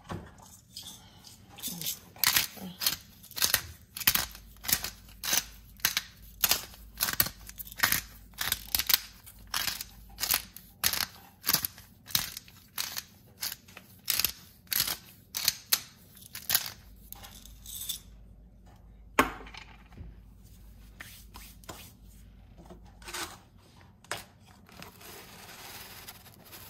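Seasoning dispensed from a spice container over cut potatoes in a cast iron pot: a steady run of short rasping shakes, about two a second, for roughly fifteen seconds, followed by a single sharp click.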